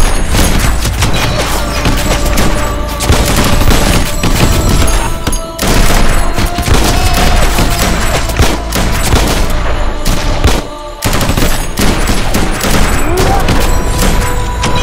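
Battle sound effects: dense, rapid rifle and machine-gun fire, with two brief breaks.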